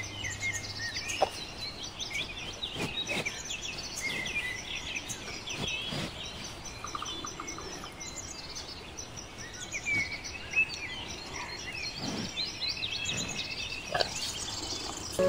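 Small birds chirping and twittering in a busy outdoor chorus, with many short, high calls overlapping, and a few faint clicks.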